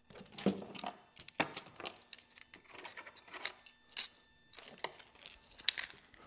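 Small hard objects clicking, clinking and rattling as they are handled and set down, with light rustling between the clicks. The sounds come in irregular bursts.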